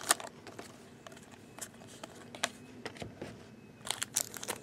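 Faint clicks and light slides of trading cards being handled and flipped through one by one, with a few sharper clicks near the end.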